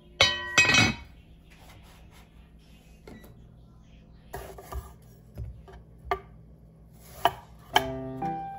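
Heavy enamelled cast-iron Staub lid set down on its pot with two quick ringing clanks, followed by scattered light knife taps on a wooden cutting board. Soft background music comes in near the end.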